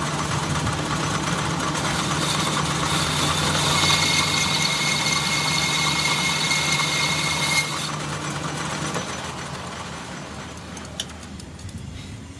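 Metal lathe running with a motorcycle wheel hub spinning in the chuck while a boring bar cuts inside the steel bearing sleeve in its centre, with a thin high whine from the cut partway through. About seven and a half seconds in, the motor is switched off and the sound dies away as the hub spins down, with a sharp click near the end.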